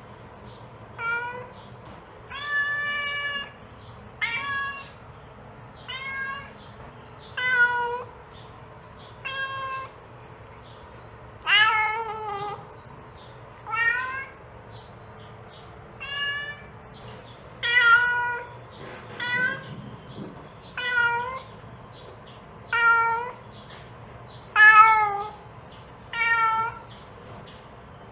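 Mother cat calling her kittens with a steady series of meows, roughly one every one to two seconds, a few of them drawn out longer.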